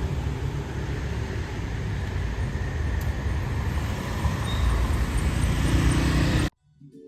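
Street traffic noise: a steady rumble of passing vehicles, which cuts off suddenly near the end.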